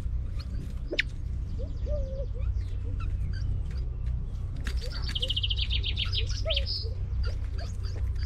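Edwards's pheasant chicks peeping with short, high, sharply falling chirps, and a few soft low clucks at the feed. A fast trill lasts about a second midway, all over a steady low rumble.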